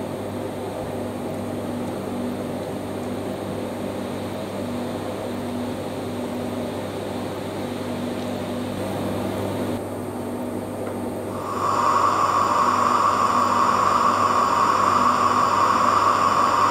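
Hornby TTS sound decoder in an OO gauge model of LNER P2 2007 Prince of Wales, playing recorded steam locomotive sounds through its small loudspeaker while the model stands. A steady hiss over a low hum, with a louder hiss coming in about eleven seconds in.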